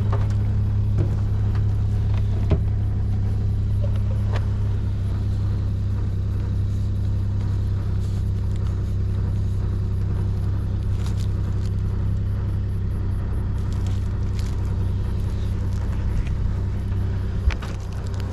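Suzuki Carry DA63T kei truck's small three-cylinder engine idling steadily, with a few light clicks over it.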